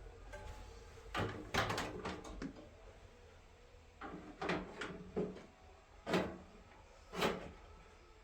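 A series of sharp knocks and clatters of hard objects: a quick cluster about a second in, then separate knocks roughly a second apart in the second half.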